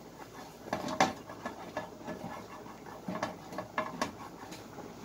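Silicone spatula spreading cooking oil around a nonstick frying pan: soft, irregular scrapes and light taps against the pan's surface.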